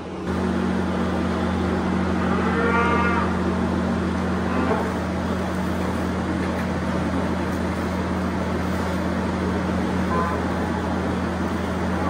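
A cow moos once about two seconds in, with a shorter, fainter moo near the end, over the steady hum of an idling tractor engine.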